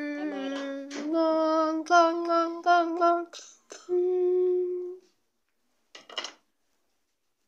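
A high voice singing held notes without words, the pitch stepping up and down, stopping about five seconds in. A brief scratchy noise follows about a second later.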